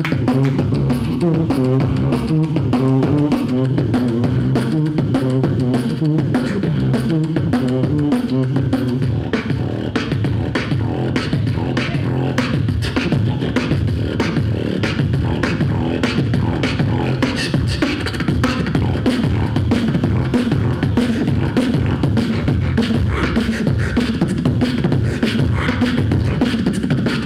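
Solo human beatboxing into a handheld microphone: a fast, steady run of mouth-made drum strokes (kick, snare and hi-hat sounds). Over the first ten seconds or so a low hummed bass line steps between notes beneath the beat.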